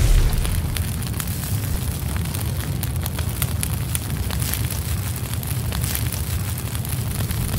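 Large fire burning after a blast: a steady low rumble with many scattered crackles.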